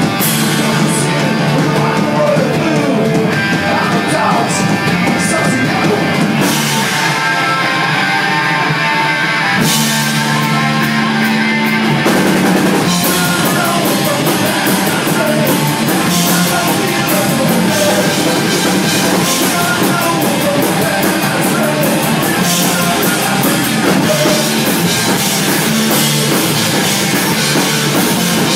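Oi! punk band playing live and loud: electric guitars, bass and a drum kit, with a man singing into the microphone.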